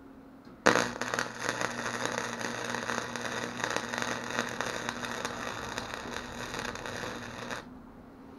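Handheld fire scanner receiving a radio transmission with no clear words: loud static and hiss with a low hum under it. It cuts in abruptly about a second in and cuts off suddenly about seven seconds later, as the squelch opens and closes.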